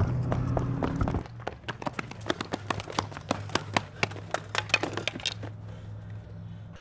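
Several people's footsteps running on pavement, breaking off about a second in into scattered sharp taps and clicks, over a steady low hum.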